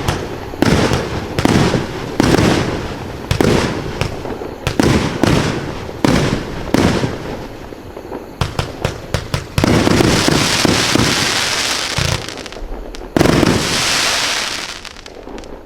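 Multi-shot firework cake (a 66-shot 1.4G mixed-effects cake) firing: shots about once a second, each a launch thump and burst. About eight seconds in comes a quick run of sharp cracks, followed by two longer rushing, crackling stretches, and then the sound fades out.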